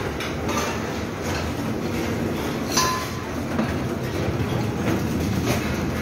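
Dining room background: a steady low rumble with scattered clinks of crockery and utensils. One sharp clink about halfway through rings briefly.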